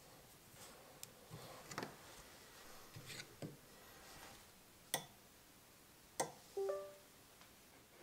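Faint handling clicks and taps as the air-assist hose is pushed onto the laser module's nozzle, the sharpest two a little before five seconds in and at about six seconds. A short ringing tone follows just after.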